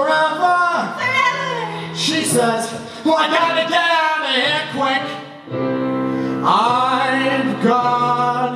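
A man singing a musical-theatre number live into a microphone, with a woman's voice joining in over instrumental accompaniment; the words come quickly, with one longer held note a little past the middle.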